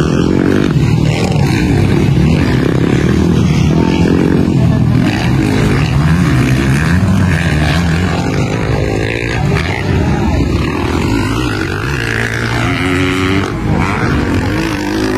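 Motocross bike engines racing, their pitch rising and falling as the riders work the throttle.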